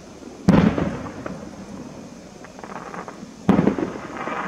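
Two aerial firework shells bursting, about three seconds apart, each a sharp bang followed by a short rumbling echo.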